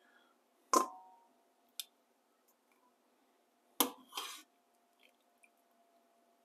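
Metal tongs clinking against a stainless steel pot as boiled squirrels are lifted out of the broth: two sharp clinks with a brief metallic ring, about a second in and near four seconds, a lighter tap between them, and a short wet rustle after the second clink.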